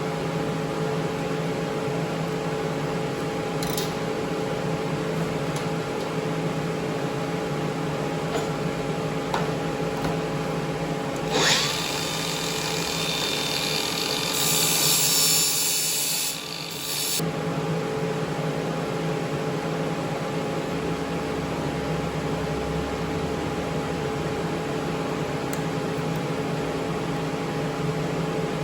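Steady machine hum with several fixed tones. About eleven seconds in, roughly six seconds of hissing, high-pitched noise rises over it, loudest near the end, then cuts off suddenly.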